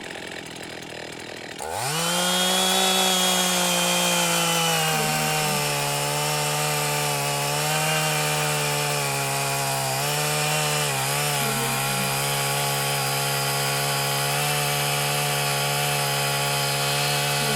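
Chainsaw engine starting about two seconds in: it catches and revs up sharply, then settles a little lower and runs steadily at high speed as it cuts wood. Its pitch dips briefly a few times under the load of the cut.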